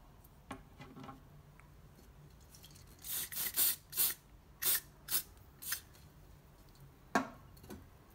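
Aerosol can of silicone spray giving about six short sprays in quick succession, lubricating a new rubber grommet before it is pushed into its hole. A single sharp click follows near the end.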